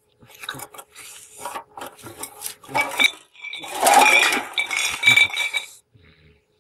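Empty glass bottles and aluminium drink cans clinking and knocking together as they are handled and set down on cobblestones. A run of irregular knocks is loudest about four seconds in, with a glass bottle ringing on briefly through the middle.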